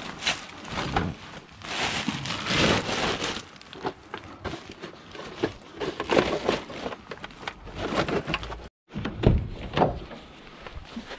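Plastic bin bag of scrap electrical parts being rummaged by gloved hands: the bag rustling and crinkling, with irregular knocks of hard plastic and metal items. The sound cuts out for a moment about nine seconds in, followed by a few dull thumps.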